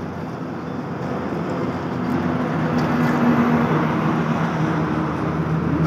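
Motor vehicle engine and road rumble growing steadily louder, with a steady low hum rising out of the noise about two seconds in.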